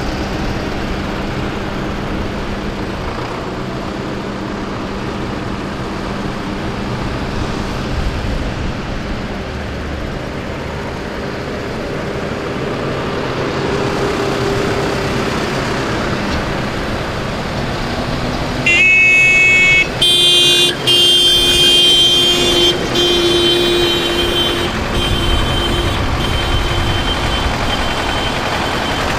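A column of diesel farm tractors driving past, their engines running steadily. About two-thirds through, a vehicle horn starts sounding in long blasts, briefly broken twice, then carries on more weakly until near the end.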